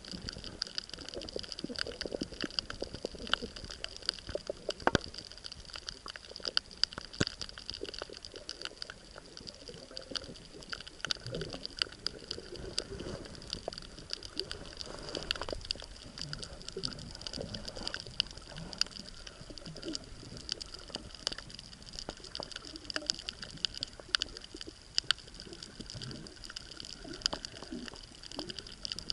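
Underwater ambience on a coral reef, heard through an underwater camera's microphone: a constant scatter of sharp clicks and crackles over a steady hiss, with low gurgles of moving water.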